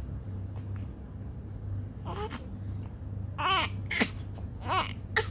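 Newborn baby crying: a handful of short, wavering cries starting about two seconds in, the last one coming just before a longer wail begins.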